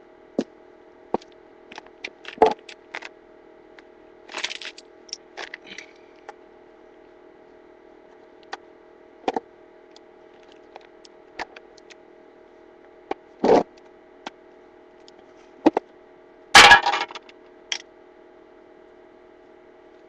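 Scattered clicks, clinks and knocks of hand tools and metal parts being handled over a faint steady hum, with a louder clatter late on.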